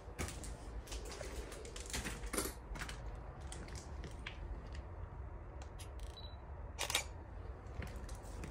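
Footsteps on a debris-strewn floor: irregular crunches and clicks, the loudest about seven seconds in, over a steady low rumble.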